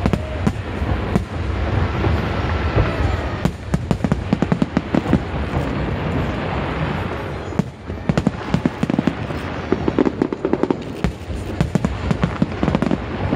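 Fireworks show: a steady low rumble of booms under many sharp, rapid crackling bangs, coming in two dense runs with a brief lull a little past halfway.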